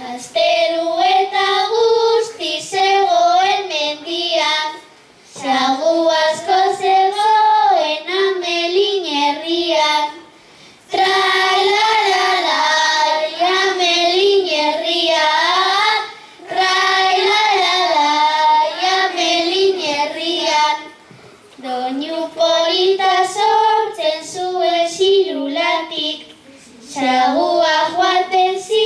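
A child singing Basque bertso verses unaccompanied, one melodic line in about six phrases separated by short breaths.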